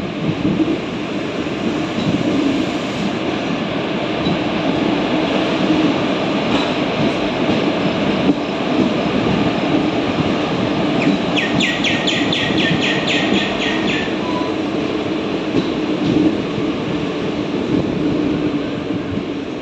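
Circar Express passenger train running through a station, heard from aboard: a steady rumble of wheels on the rails. Midway through, a rapid run of sharp high ticks lasts about two seconds.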